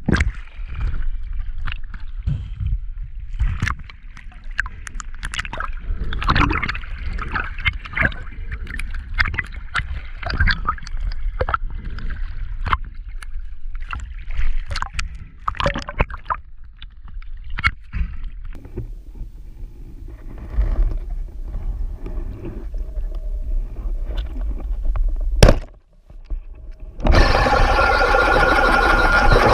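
Underwater sound from a spearfisher's camera: irregular sharp clicks, knocks and gurgling over a low rumble. Near the end the sound cuts out briefly, then gives way to a loud, steady drone with a held tone.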